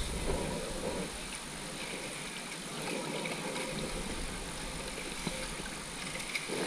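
Inflatable kayak on a river: a steady wash of moving water with a few faint paddle splashes.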